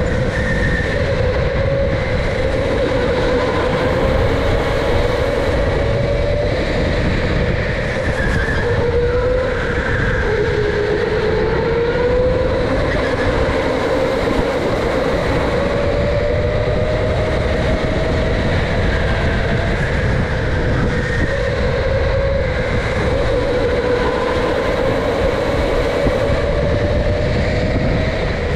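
Electric go-kart heard from on board as it laps a track: the motor's whine rises and falls as the kart speeds up and slows for the corners, over a steady rumble from the tyres and chassis.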